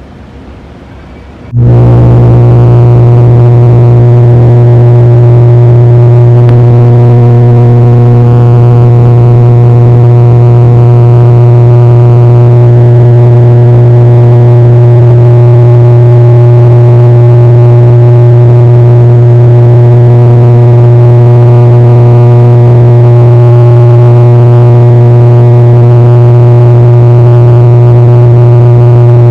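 Airliner engines droning in flight, a loud, unchanging low hum with a stack of overtones that cuts in suddenly about a second and a half in.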